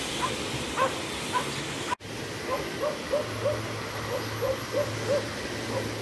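Waves washing onto a sandy beach, with a run of short yelping animal calls repeating several times a second.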